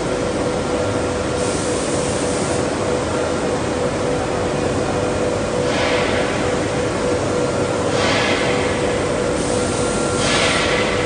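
Steady rushing air-and-machinery noise of a running powder coating line, with a constant hum. Louder hissing swells come a few times from about halfway in.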